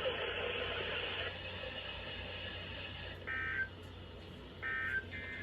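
NOAA Weather Radio received over a radio, with static hiss that drops away about a second in. From about three seconds in come three short, buzzy digital data bursts, each under half a second: the SAME end-of-message code that closes the weekly test.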